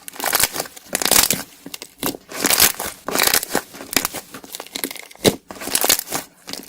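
Iceberg slime being squeezed and pressed by hand, its dried, hardened top crust crackling and crunching in quick irregular bursts.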